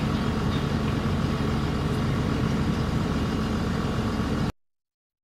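Steady low mechanical rumble, like an engine running at idle, that cuts off suddenly about four and a half seconds in.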